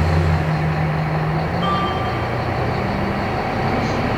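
Scania K270IB bus engine running steadily under way. Its note steps down about a second and a half in and climbs again a second later.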